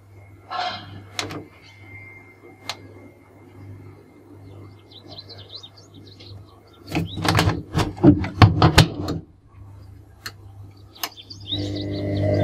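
A burst of sharp clicks and knocks about seven to nine seconds in as the start button on a Whirlpool front-loading washing machine is pressed, with a few single clicks before and after. A steady low hum and faint bird chirps run underneath, and music comes in near the end.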